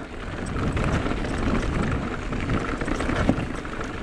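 Mondraker Level RR electric mountain bike riding down a loose gravel trail: the tyres keep up a steady rolling crunch, with many small clicks and rattles of stones and the bike, over wind noise on the microphone.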